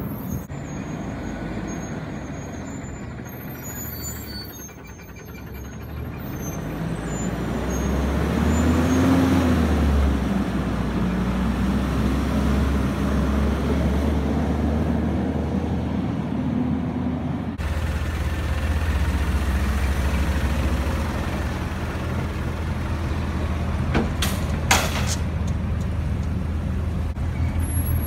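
Diesel engine of an automated side-loader garbage truck running as the truck drives and pulls up, revving up about a third of the way in. About three-quarters of the way in there are two short, sharp air-brake hisses.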